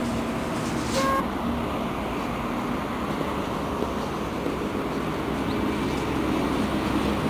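Steady outdoor road traffic noise. There is a brief click with a short tone about a second in.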